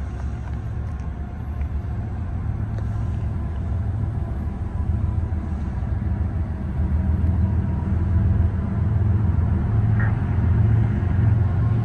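Low, steady rumble of diesel locomotive engines, growing gradually louder.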